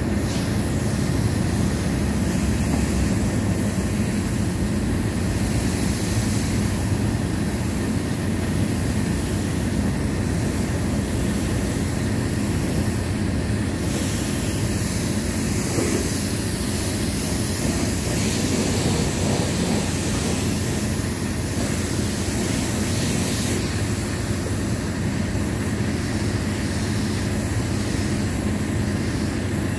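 High-pressure spray wand at a self-serve car wash rinsing soap off a minivan: a steady hissing rush of water. The hiss grows brighter for several seconds from about halfway through.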